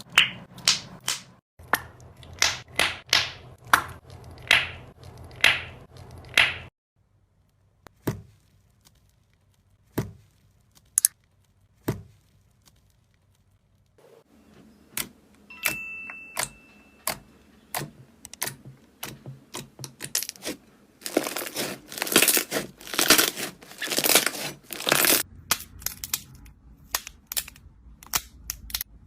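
Crunchy slime being pressed and squeezed by hand, giving runs of crackling, crunching pops. A few seconds in, it drops to several seconds of near quiet with only scattered clicks, then picks up again into a dense, loud burst of crackling.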